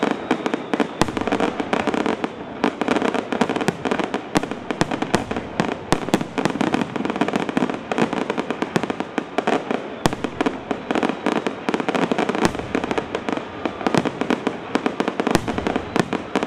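Fireworks display: a continuous barrage of aerial shells bursting, many sharp bangs over a steady crackle.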